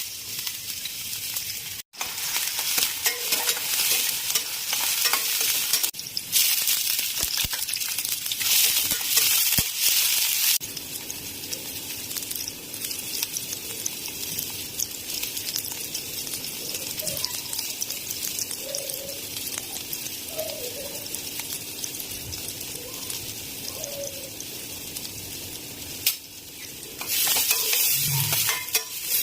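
Hot cooking oil sizzling and spitting in a pan as food fries, with the sizzle growing much louder for a few seconds at a time, most strongly in the first ten seconds and again near the end.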